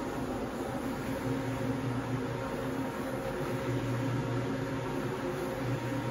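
Single-disc rotary floor machine running steadily, its brush scrubbing a foamy, shampooed rug: an even motor hum over a noisy wash.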